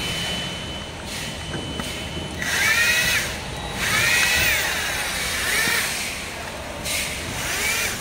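KEN cordless drill-driver running in several short bursts on the screws of an electric scooter's front fender, its motor whine rising and falling with each squeeze of the trigger.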